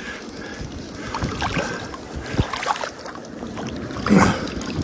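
Wind on the microphone over the flowing river, with rustling of a jacket and gloves as a fly rod is held against a hooked fish; one short louder noise near the end.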